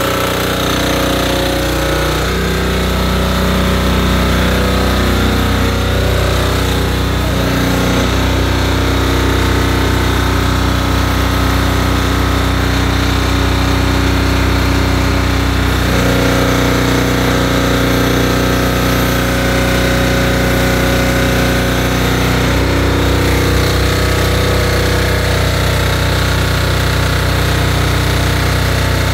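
Steady drone of the motor-driven fogging unit that feeds the hand lance's hose, running without a break and changing its note a few times.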